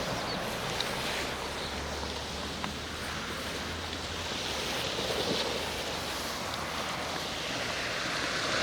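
Small sea waves washing onto the shore, the wash swelling and fading about every four to five seconds, with light wind on the microphone. A faint low hum sits underneath for a couple of seconds about two seconds in.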